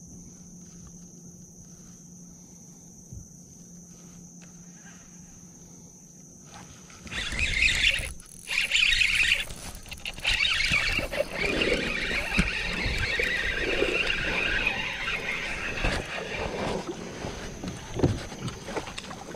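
A hooked bass being fought and reeled in on a spinning rod beside a kayak: a quiet stretch, then from about seven seconds in a loud, uneven rush of reel and handling noise with a few sharp knocks.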